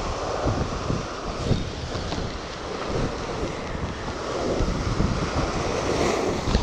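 Sea waves breaking and washing over shoreline rocks, with wind buffeting the microphone. The surf swells louder a few seconds in.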